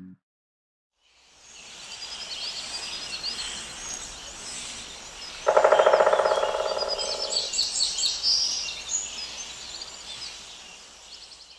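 Woodpecker drumming on a tree trunk: a sudden, rapid burst of knocks about halfway in, lasting about two seconds and fading. Behind it is a fading-in and fading-out chorus of high bird chirps.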